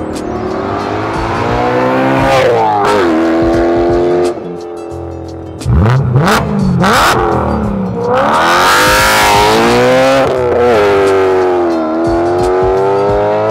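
BMW S65 4.0-litre V8 in an E91 3 Series wagon, loud, revving hard under acceleration. Its pitch climbs and drops again and again as it revs up and shifts, with a sharp surge about six seconds in.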